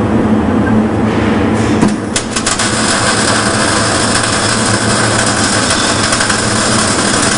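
A steady low hum, then about two seconds in an electric welding arc strikes with a few crackles and settles into a steady crackling hiss.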